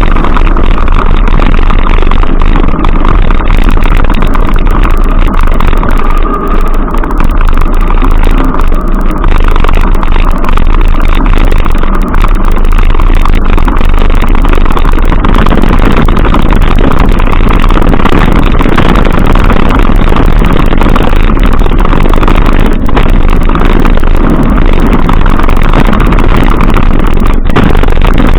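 Loud, steady vehicle noise without a break.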